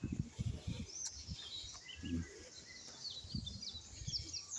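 Several wild birds chirping and calling in short, high, repeated notes and trills, with intermittent low rumbling thumps on the microphone.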